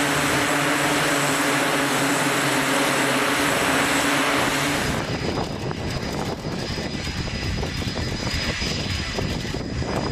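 Jet engine noise on an aircraft carrier flight deck: a loud, steady rush with a held hum beneath it. About halfway through it changes abruptly to a rougher, thinner noise with scattered knocks.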